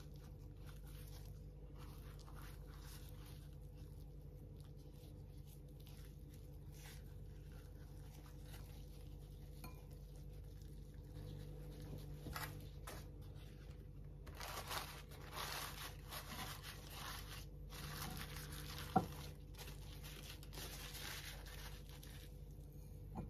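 Kitchen paper rustling and crinkling as it is peeled off a block of silken tofu and a fresh sheet is wrapped around it, denser and louder in the second half. One sharp tap stands out near the end, over a faint steady hum.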